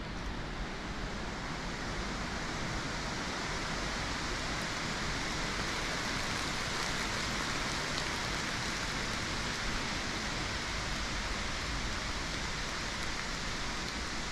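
Steady, even rushing noise of outdoor ambience, with no distinct events in it.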